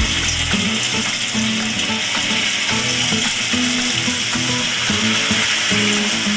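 Noodle-coated paneer rolls deep-frying in hot oil in a kadhai, with a steady, loud sizzle of oil bubbling hard around them. Background music with held notes plays underneath.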